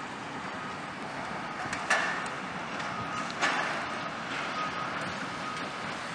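Backup alarm on heavy demolition machinery beeping about twice a second over steady machine and site noise, with two sharp crashing impacts about two and three and a half seconds in.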